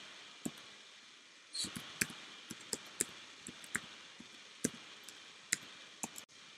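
Computer keyboard keys being typed slowly: about a dozen separate, sharp keystroke clicks at irregular intervals.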